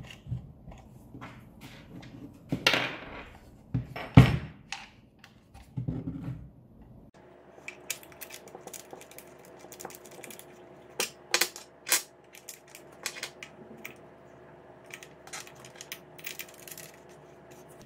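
Small metal and plastic parts clicking and knocking as a bench grinder's metal tool rests are set in place and fastened with red plastic locking knobs, with a brief rustle early and one louder knock about four seconds in. The grinder is not running.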